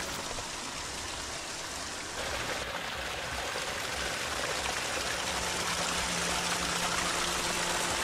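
Water flowing in a stream: a steady rushing noise that grows slightly louder.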